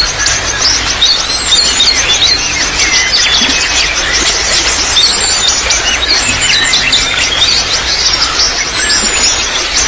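Trickling water with many small birds chirping rapidly and continuously over it, and a few thin, high, falling whistles about a second, four seconds and nine seconds in.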